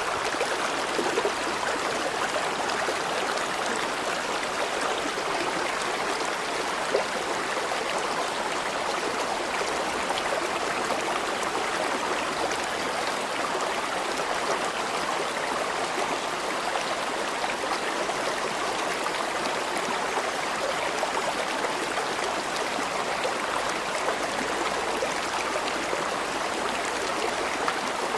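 River water flowing steadily, a constant rushing and babbling.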